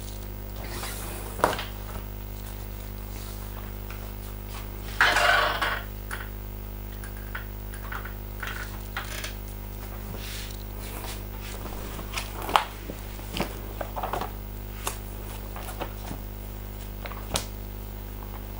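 Scattered small clicks and knocks, with a short rustle about five seconds in, over a steady low electrical hum.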